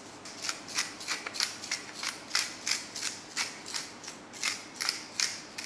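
Salt and pepper being shaken or ground over raw beef short ribs: a rhythmic series of short, crisp rasps, about three a second.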